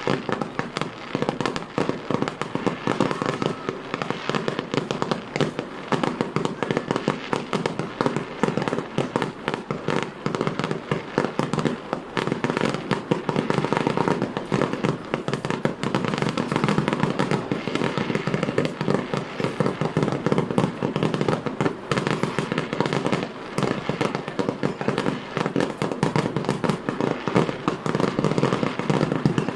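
Aerial fireworks display: a dense, unbroken run of shell bursts and crackling, many reports a second overlapping one another.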